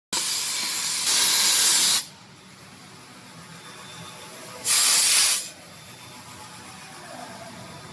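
Compressed-air Venturi blow and vacuum gun hissing in two bursts as its trigger is pressed and released: one of about two seconds that grows louder partway through, then a shorter burst about five seconds in, each cutting off sharply.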